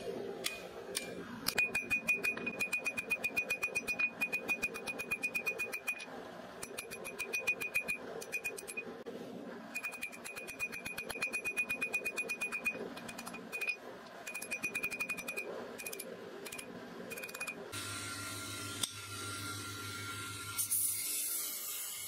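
Hammer blows forging a red-hot steel bearing race on an anvil: rapid runs of strikes, each with a steady high-pitched anvil ring, broken by short pauses. Near the end the strikes stop and give way to a steady machine hum, then a brief high hiss.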